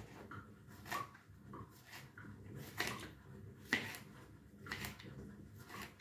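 A kitchen knife cutting a tomato on a plastic cutting board: irregular knocks of the blade hitting the board, roughly one a second.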